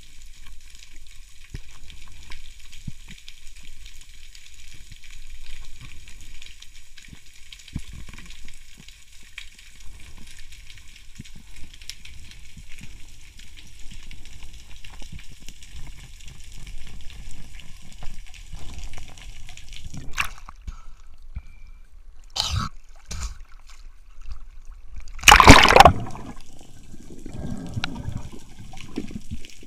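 Underwater water noise heard through a diving camera's housing: a faint steady crackling hiss with low rumbling, then a few knocks and, about 25 seconds in, a loud splashing rush lasting under a second, followed by low gurgling.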